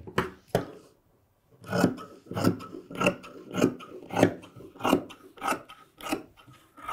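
Tailor's shears cutting through denim in a run of sharp snips: two snips, a short pause, then a steady series of about nine snips, roughly three every two seconds.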